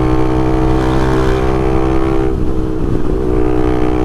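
Honda CBX 250 Twister's single-cylinder four-stroke engine running steadily at highway cruising speed, with its air-intake hose (mangote) removed, which makes it pull a little harder.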